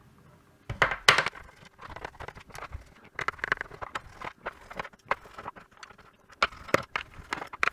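Phillips screws being taken out of a cordless Bosch reciprocating saw's plastic housing: irregular small clicks and knocks of the screws, tool and plastic shell being handled, with a louder knock about a second in.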